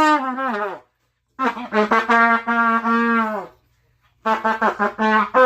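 Trumpet played by a first-day beginner: a note that sags downward in pitch and dies away, then after a short gap a held note of about two seconds, then a quick run of short tongued notes near the end.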